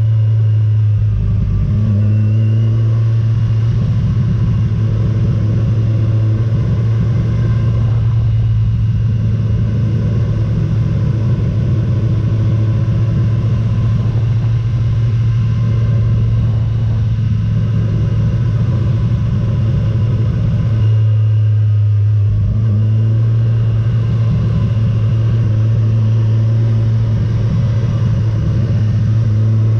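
Motorcycle engine running steadily under way, its note shifting briefly about a second in and again about 22 seconds in.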